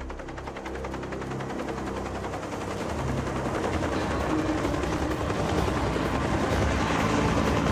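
Bell UH-1 Huey helicopter flying by: the fast, even chop of its two-bladed main rotor over a low turbine drone, growing steadily louder.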